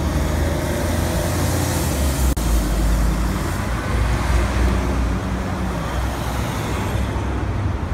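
A city bus pulling away with its diesel engine running, over steady road traffic with cars passing close by.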